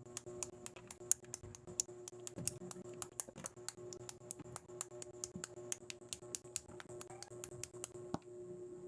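Plastic building bricks clicking and snapping together in quick succession, several sharp clicks a second, over a steady tone.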